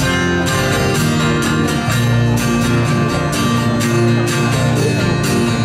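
Live band playing a song: strummed acoustic and electric guitars over a steady beat.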